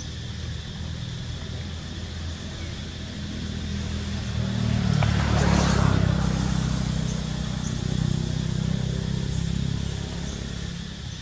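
A motor vehicle passing: its low engine hum swells to a peak about five seconds in, with a rush of tyre and road noise, then slowly fades. A steady high drone of insects runs underneath.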